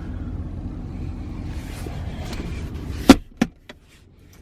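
Steady low rumble of the truck's 5.7-litre Hemi V8 idling, heard inside the cab. About three seconds in there is a loud click and then two lighter clicks, as a storage compartment latch is opened.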